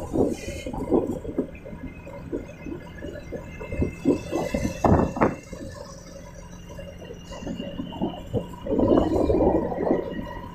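Wind buffeting the microphone of a camera riding on a moving motorbike, in uneven gusty surges, with a faint steady engine hum underneath.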